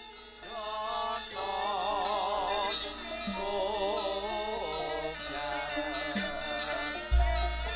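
Javanese gamelan music for Tayub: sustained pitched instruments with a wavering sung melody above them, and a deep low stroke near the end.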